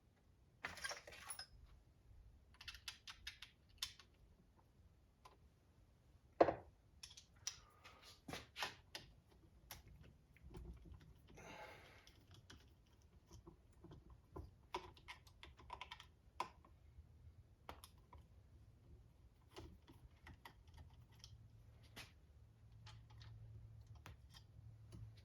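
Scattered light clicks and taps of small hand tools and metal parts being handled at a workbench, with one sharper knock about six seconds in and short scraping rasps near the start and around the middle, as work goes on at a rounded-out hex screw on an RC car.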